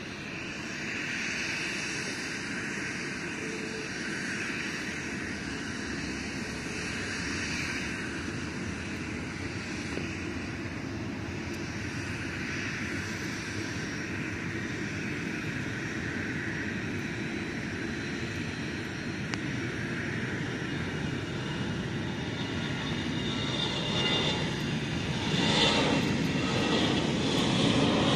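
StarFlyer Airbus A320's twin jet engines at takeoff power during the takeoff roll: a steady rushing jet noise that grows louder over the last few seconds as the jet comes closer.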